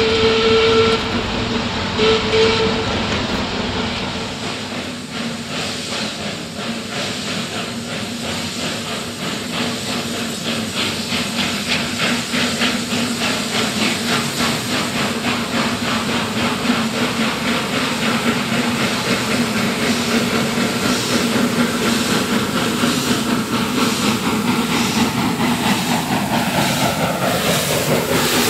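HGS class broad-gauge steam locomotive approaching through a tunnel and passing close by. It gives two whistle blasts, the first ending about a second in and a short second one just after. These are followed by a rapid, regular exhaust beat that grows steadily louder as the engine works hard out of the tunnel. Near the end, as it passes, steam hisses from the cylinders and a tone drops in pitch.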